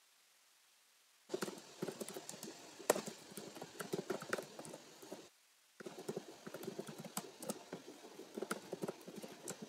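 Typing on a computer keyboard: two runs of rapid key clicks, the first starting about a second in, with a short pause in the middle.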